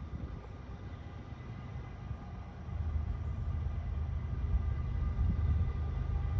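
CSX freight train of empty coal cars rolling by, a steady low rumble with faint steady ringing tones above it. The rumble gets louder about two and a half seconds in.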